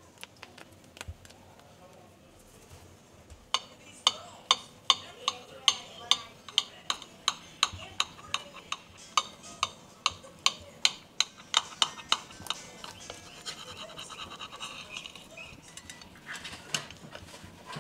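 A knife sawing through a frosted carrot cake topped with walnuts. A few seconds in, a run of sharp, crunchy strokes starts at about three a second and lasts about nine seconds. It gives way to a softer scraping as a server slides under a slice, with one last click near the end.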